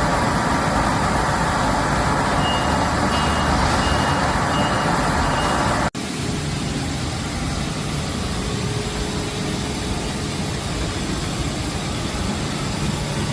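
Steady noise of woodworking machinery running, with a run of short, evenly spaced high beeps in the first half, then a sudden cut to a quieter, steady machine noise.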